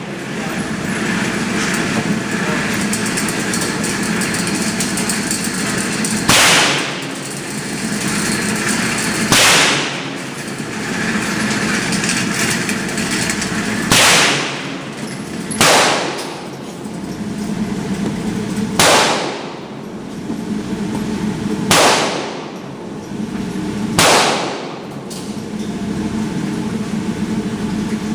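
Bushmaster ACR rifle firing single .223 Remington shots, seven in all, irregularly spaced two to five seconds apart, each a sharp crack with a brief trailing decay. A steady low hum sits under the shots.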